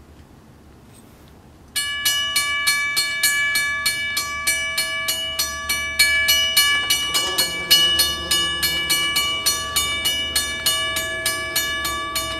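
Railroad grade-crossing warning bell starting up about two seconds in and ringing rapidly and evenly, about four strikes a second. From about halfway, a fainter, lower locomotive horn sounds underneath it as the train approaches.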